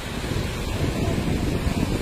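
Floodwater of a stream in spate rushing steadily, heavy in the low end, with wind rumbling on the microphone.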